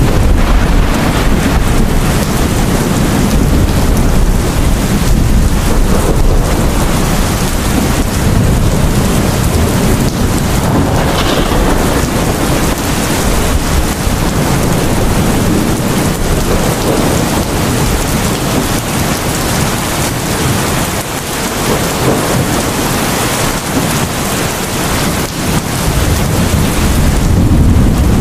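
Heavy rain pouring steadily in a thunderstorm, with a deep rumble of thunder swelling and fading underneath.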